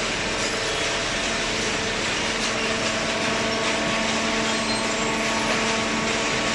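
Industrial cardboard baler running: a steady mechanical hum with several held tones over a constant hiss.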